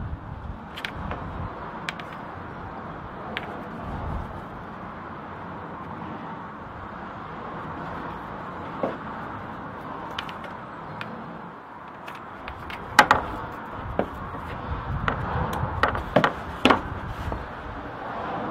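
Handling sounds of a leather hatchet sheath and hatchet on a wooden workbench: scattered light clicks and knocks over a steady background hiss, busiest in the last few seconds as the hatchet is set down and fitted into the sheath.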